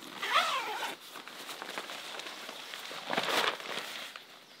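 Nylon tent fabric rustling and swishing as a dome tent's fly sheet is handled and pulled into place, with one stronger swish about three seconds in. A short sliding pitched sound comes near the start.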